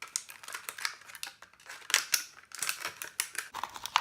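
Scissors snipping through a thin plastic water bottle, a quick irregular run of cuts and plastic crackles, loudest about two seconds in.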